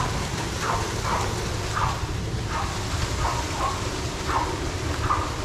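A dog barking repeatedly, about eight short barks each falling in pitch, a little under one a second, over a steady low rushing noise.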